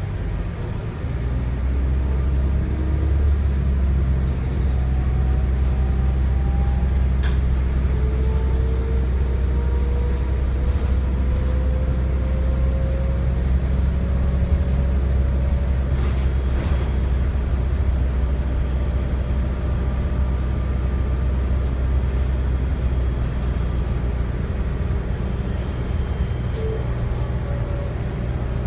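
Cabin sound of a 2006 New Flyer DE40LFR diesel-electric hybrid bus under way. A steady low drone from its Cummins ISL diesel runs under a whine from the Allison EP40 hybrid drive that rises slowly in pitch as the bus gathers speed, then holds. A couple of brief knocks are heard.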